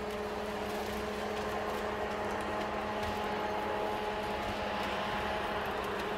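A heavy machine's engine running steadily, a constant hum with an unchanging pitch.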